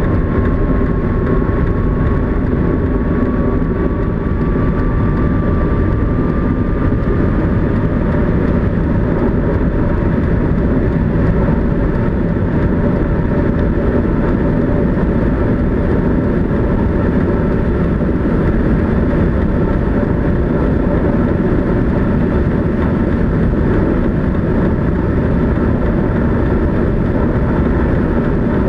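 Inside the closed cockpit of the KillaJoule electric streamliner sidecar motorcycle, accelerating at full throttle toward 220 mph: a loud, steady rush and rumble, with no combustion engine note. A faint whine rises slowly over the first several seconds.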